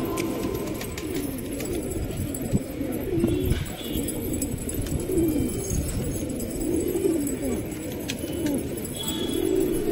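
A flock of domestic pigeons cooing, many overlapping coos, with a couple of sharp clicks near the middle.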